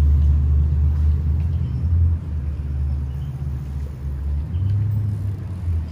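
Low, steady rumble of motor traffic on a city street, swelling and easing slightly.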